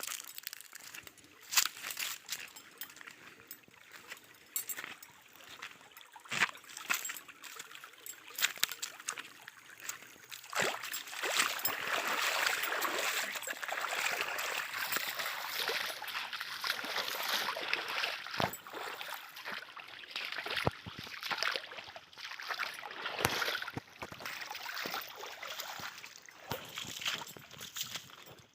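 Water trickling and splashing, with a steadier rush swelling for several seconds in the middle, among scattered irregular clicks and crunches.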